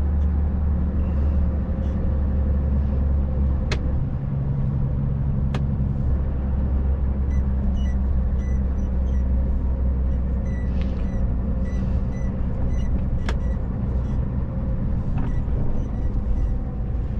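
Lorry's diesel engine running steadily under way, a low drone with road noise, heard from inside the cab. Three sharp clicks break through, about four, five and a half and thirteen seconds in.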